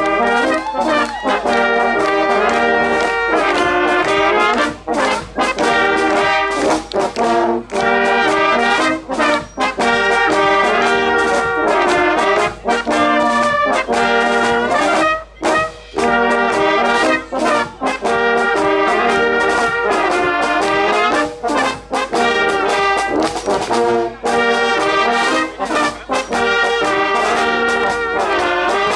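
Brass band music playing a tune with a steady beat.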